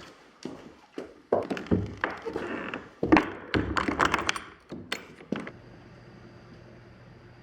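A string of thunks and taps, the loudest about three seconds in, then from about five and a half seconds a steady low hum with a faint high whine.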